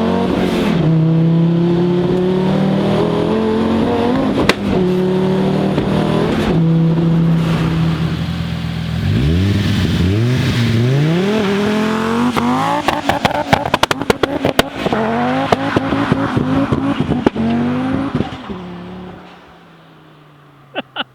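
Volvo V70 T5 engine revving hard: held at high revs, then dropping and climbing again several times, with a rapid crackle of sharp pops partway through. Near the end the revs fall away and it quietens.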